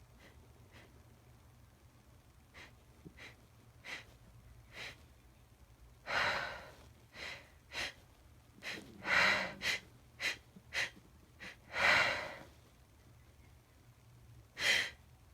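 A woman's sneezing fit building up: faint sniffs, then a run of sharp, gasping inhalations that grow louder and come closer together, with a loud burst near the end. The fit is brought on by sniffed chhinkni, a sneeze-inducing snuff.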